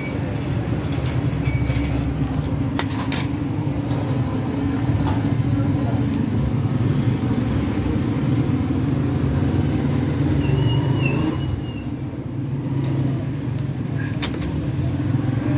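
Steady low rumble of a running engine, with a few faint clicks.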